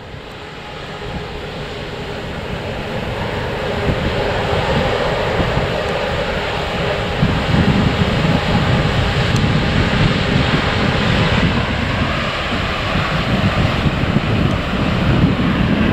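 Airbus A350-900's Rolls-Royce Trent XWB turbofan engines running as the jet moves along the ground, a steady jet whine and rumble that grows louder over the first half. Wind buffets the microphone.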